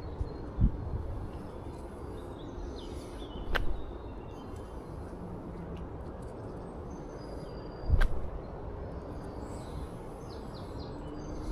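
Outdoor ambience: a low wind rumble with faint bird chirps, broken by three sharp knocks.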